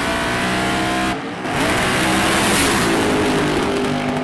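Twin-turbo and nitrous Mustang drag cars launching at full throttle and accelerating down the strip, engines climbing in pitch. The note drops briefly about a second in, then rises again.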